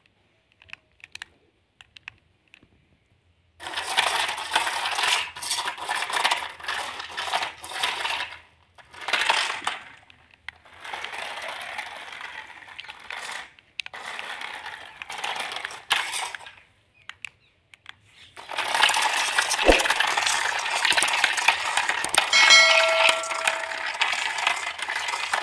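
Toy RC stunt car driving over concrete paving stones in runs of a few seconds, its plastic wheels rattling and scraping, with pauses between runs. A short chime sounds near the end.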